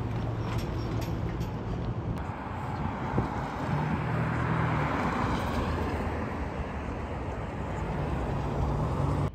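City street traffic: cars and a truck driving past with a steady engine hum and tyre noise, one vehicle swelling louder as it passes a few seconds in.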